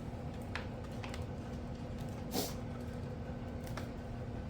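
A few light clicks and taps from hands working a Kato Unitrack N scale turnout and its plastic track pieces, over a steady low hum.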